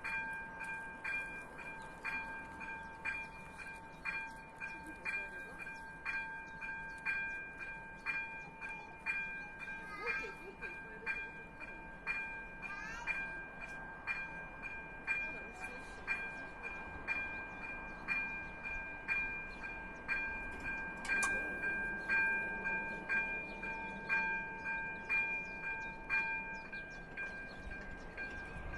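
Railway level-crossing warning bell ringing in a steady beat of about two strikes a second, signalling that a train is approaching and the barriers are lowering.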